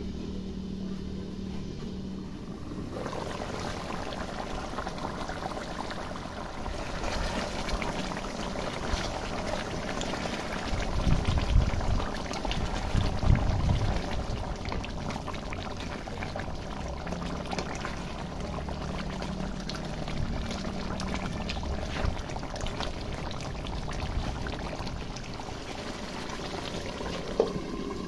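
Chicken curry gravy bubbling and sizzling in an open metal wok, with a spatula stirring through it, loudest for a few seconds in the middle. A sharp clink near the end as the glass lid goes back on.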